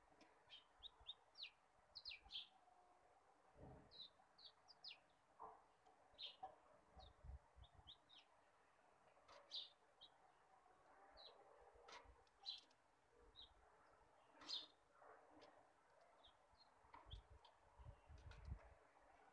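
Faint, irregular chirping of small birds, short high chirps a few times a second, with a few soft low bumps from handling in between.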